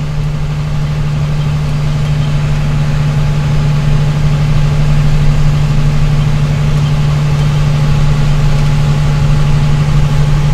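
Truck engine running steadily on the move, heard from inside the cab as a constant low drone with a strong steady hum, growing a little louder over the first few seconds.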